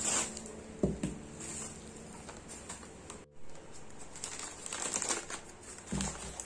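Light taps, clicks and crinkling, as of objects and packaging being handled, with a sharper knock about a second in.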